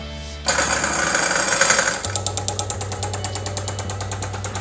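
Chocolate fountain's auger motor switched on and running. A burst of noise about half a second in settles after a second or so into a steady hum with a fast, even rattle.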